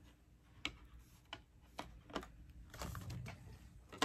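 Half a dozen faint, irregular clicks and taps from hands handling trading-card items and a cardboard box on a tabletop.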